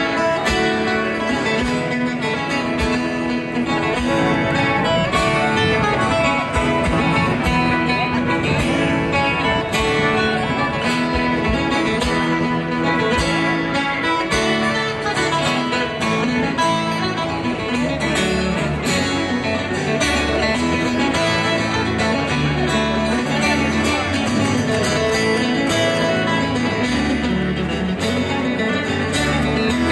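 Live Celtic folk band playing an instrumental tune on fiddle, strummed acoustic guitar, a small plucked string instrument and electric bass.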